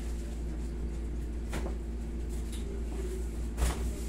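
Hands working a sprained ankle in a hilot massage: two short sharp clicks, the second louder, near the end, over a steady low hum.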